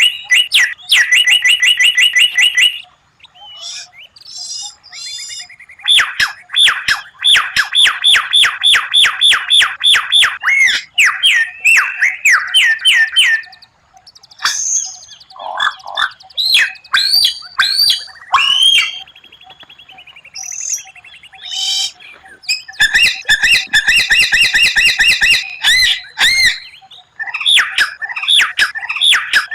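White-rumped shama (murai batu) singing a varied song. Fast trains of repeated sharp notes, several a second, alternate with sweeping whistles and chirps, with short pauses between phrases.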